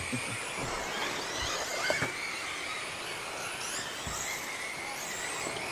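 Electric short-course RC trucks racing on a dirt track: several high-pitched motor whines rise and fall as the trucks pass, over a steady hiss of noise.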